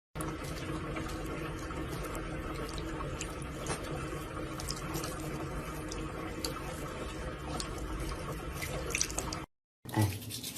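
Steady running water with scattered small drips or ticks, cutting off abruptly near the end.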